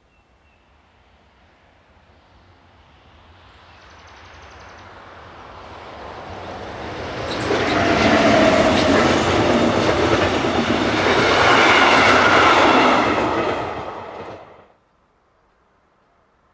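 DB Class 101 electric locomotive 101 050 hauling the InterCity train IC 2154 past at speed. Its rumble builds over several seconds, then comes the loud rush of the locomotive and coaches going by, which cuts off abruptly near the end.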